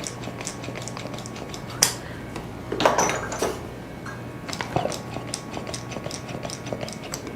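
Scattered short clicks and clinks of cupping therapy cups being handled and applied to the skin.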